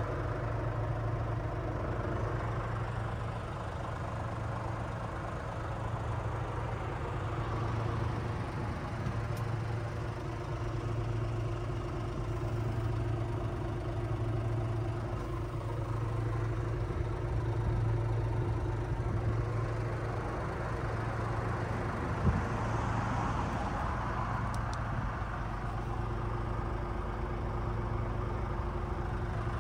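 Scania R450's 13-litre straight-six diesel idling steadily, heard from inside the cab, with a single light knock about two-thirds of the way through.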